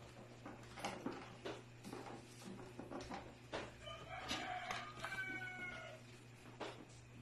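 Puppies playing on a tiled floor: scattered light taps and knocks. About four seconds in comes a pitched animal call lasting about two seconds, falling slightly in pitch.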